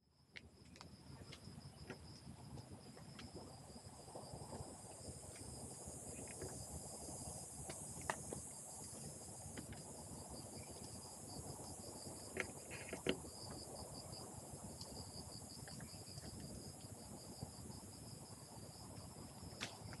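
Steady insect chorus in woodland, a continuous high pulsing trill over a faint hiss, with a few light knocks here and there.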